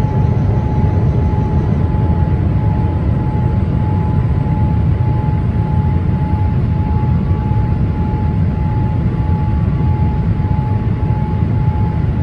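Boeing 787's General Electric GEnx-1B turbofan engines running steadily: a deep, even rumble with a steady whine above it.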